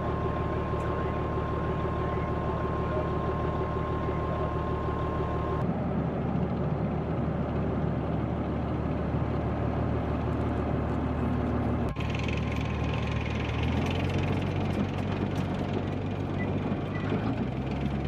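M1 Abrams tank driving across rough ground: a steady mechanical engine and running-gear noise, with a steady high whine in the first several seconds. The sound changes character abruptly twice, about six and twelve seconds in.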